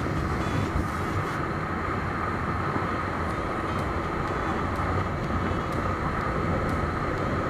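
Honda Supra GT-R 150's single-cylinder engine running steadily at speed, mixed with constant wind rush over the dash-mounted camera.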